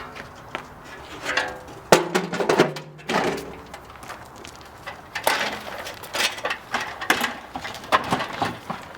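Metal clanking and knocking as scrap metal is worked with hand tools: irregular strikes, the loudest of them ringing briefly.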